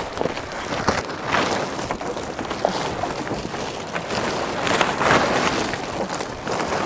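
Waterproof plastic sheet rustling and crackling irregularly as it is handled and caught by the wind.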